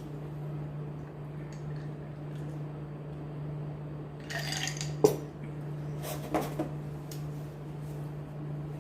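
Cutlery and dishes clinking during a meal: a short scraping sound, then one sharp clink about five seconds in and a few lighter clinks just after, over a steady low hum.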